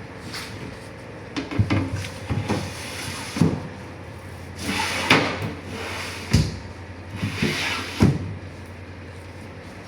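A series of knocks and clunks, with two short rushing scrapes between them, over a steady low machine hum.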